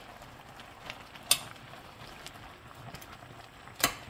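Pot of doenjang soup with spinach boiling, a steady bubbling hiss, with two sharp clinks, one about a second in and one near the end, as a metal ladle goes into the pot.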